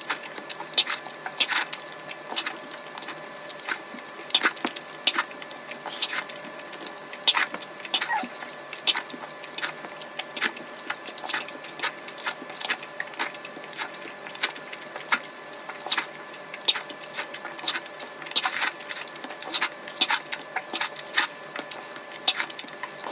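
Close-miked eating sounds of a person eating eggs: a continuous run of sharp, irregular clicks and smacks, several a second, over a faint steady hum.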